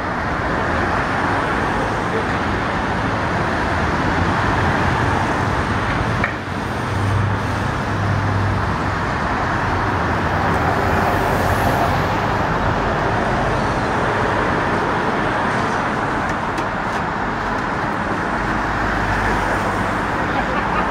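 Steady city street traffic: cars driving past in a continuous stream, with a city bus passing close by near the middle.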